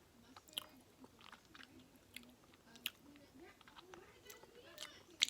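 Someone chewing a gummy fruit snack: irregular wet mouth clicks and smacks, with the loudest smack near the end.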